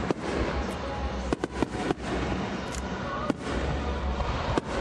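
Aerial fireworks bursting, many sharp bangs and crackles in quick, irregular succession over a continuous low rumble.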